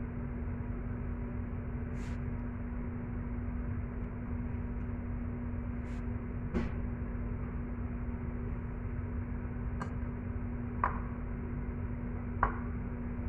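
Steady low hum under a handful of short clicks and taps as bell peppers pinned shut with wooden toothpicks are handled and set down on a plate. The last two taps, near the end, are the loudest.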